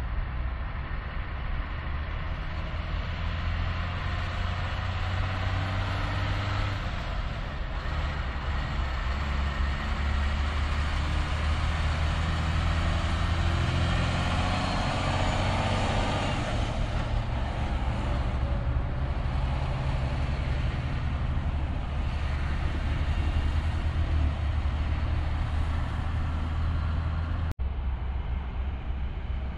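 Diesel engine of a semi-truck tractor-trailer running as the rig pulls slowly through. Its low engine note rises and falls with the throttle and shifts, and is loudest around the middle as the truck passes close by.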